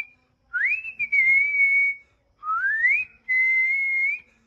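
A person whistling: three clear notes, each sliding up and then held steady, with short gaps between them.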